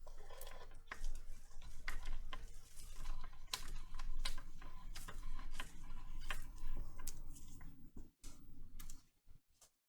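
Irregular small clicks and taps of handling work on a bench, over a low rumble that stops about eight seconds in.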